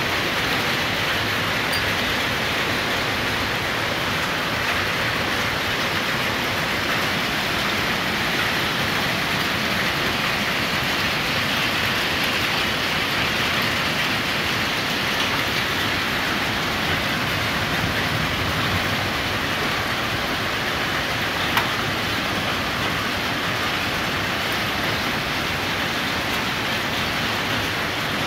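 Steady thunderstorm downpour: rain making an even hiss, with one brief click about three-quarters of the way through.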